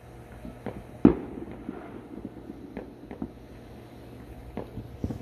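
Fireworks and firecrackers going off: scattered sharp pops at irregular times, with one louder bang about a second in.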